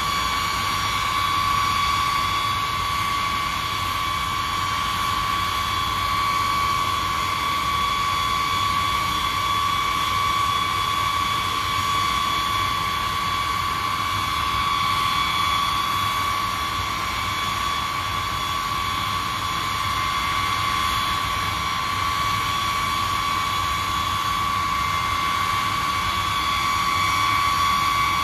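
B-52 bomber's TF33 turbofan jet engines running on the ground: a steady high whine of several fixed tones over a constant rushing noise, rising and falling a little in loudness.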